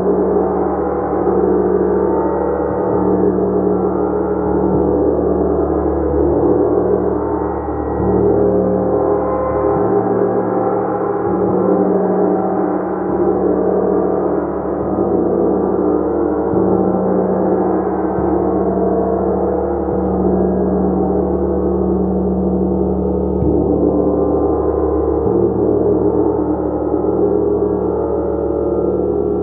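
A gong played continuously: many overlapping tones blend into a dense, sustained wash, steady in loudness, with no single strike standing out.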